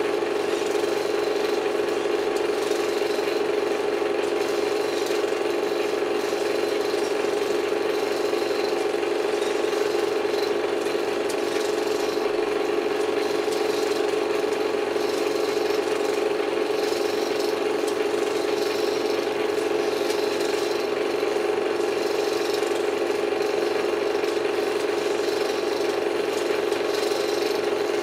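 Projector running: a steady, even mechanical hum that does not change.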